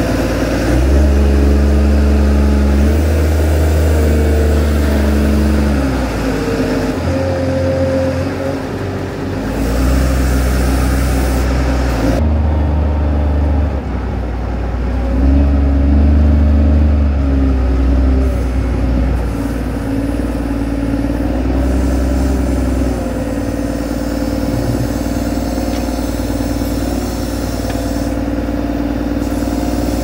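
Loader engine working under load, its pitch rising and falling as the machine scoops and carries straw-pack bedding and manure.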